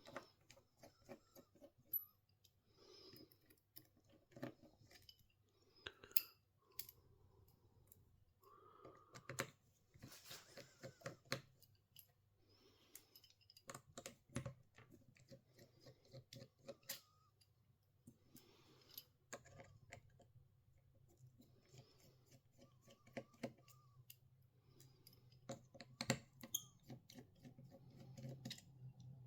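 Faint, irregular small clicks and short scrapes of hand tools against the inside of an opened smartphone as it is taken apart, over a faint low hum.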